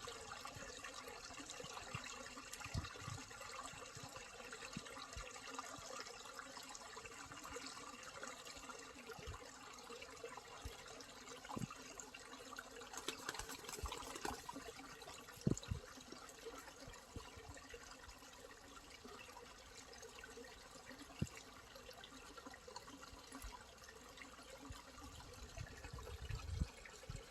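Stream water flowing in a steady, faint trickling rush, with a few soft low thumps scattered through.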